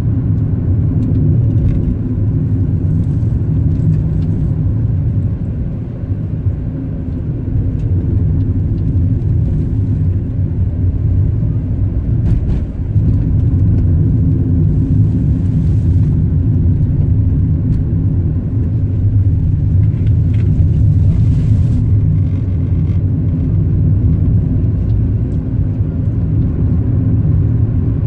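Car driving, heard from inside the cabin: a steady low rumble of engine and tyres on the road, easing briefly about six seconds in.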